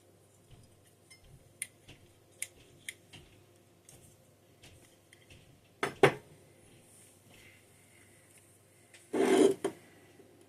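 Small metal carburetor parts clicking and clinking as they are handled during a Holley spread bore carburetor teardown, with a louder double knock about six seconds in and a brief louder clatter near the end.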